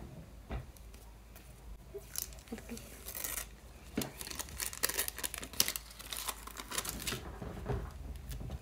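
Handmade paper surprise packet and its tape-covered paper sticker being pulled open and handled: crackly rustling and tearing of paper and tape, starting about two seconds in and running on in quick irregular crackles.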